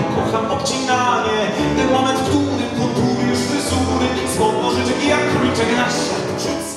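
A man singing a theatrical actor's song (piosenka aktorska) into a microphone, accompanied by piano.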